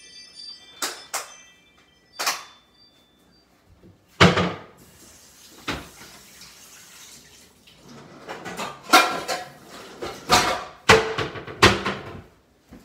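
Kitchen clatter: a series of knocks and clinks from dishes and utensils being handled on a counter, thickest in the last few seconds, with some water sounds.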